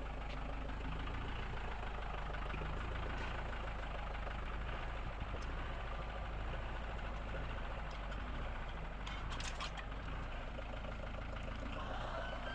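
Engine of the fork-equipped lifting machine idling steadily, with a couple of short sharp clicks about nine and a half seconds in.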